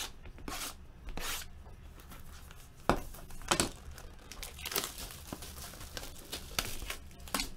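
Bowman Chrome football card packs being torn open and their wrappers crinkled: a string of short ripping and rustling sounds with a few sharp clicks.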